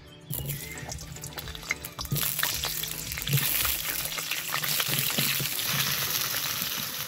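Potatoes sizzling as they fry in hot mustard oil in a kadai, stirred in the pan, with scattered short clicks. The sizzle starts just after the opening and grows louder about two seconds in.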